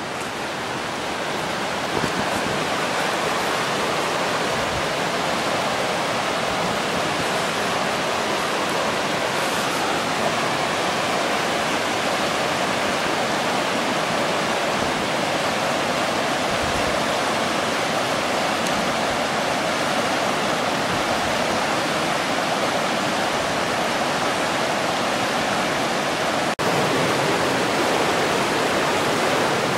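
Fast-flowing river rushing over rocks and rapids, a steady full rush of water. Near the end it breaks off for an instant and comes back slightly louder.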